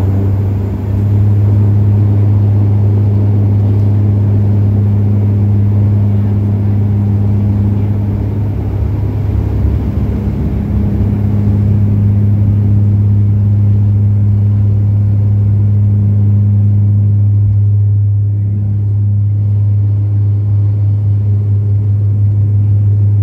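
Bombardier Q400's Pratt & Whitney Canada PW150A turboprops at takeoff power, heard inside the cabin: a loud, steady propeller drone over runway rumble. The rumble thins out about three-quarters of the way through as the aircraft lifts off.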